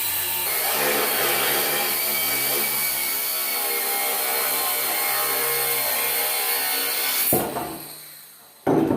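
A handheld power tool running hard under load, working on steel, then switched off about seven seconds in and winding down over a second or so. A sharp knock follows near the end.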